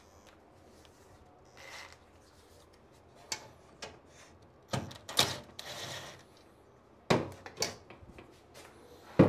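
Short runs of a Makita cordless impact driver driving screws into the steel side plate of a pull-down cabinet basket, with sharp metal knocks and clicks between them as the screws and plate are handled; the loudest is a sharp knock near the end.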